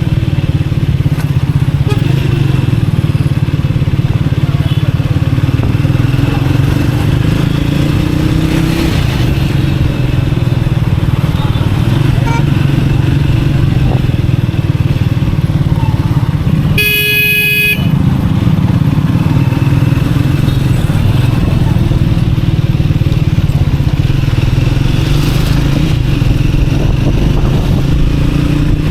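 Triumph Speed 400's single-cylinder engine running steadily through traffic, its pitch rising and falling as the revs change. About 17 seconds in, a horn sounds once for about a second.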